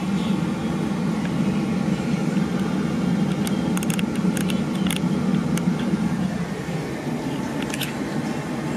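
Steady low hum and air rush inside a Ford bus's cab, from the dash ventilation and the running vehicle, easing off about seven seconds in. A few light clicks come midway and near the end.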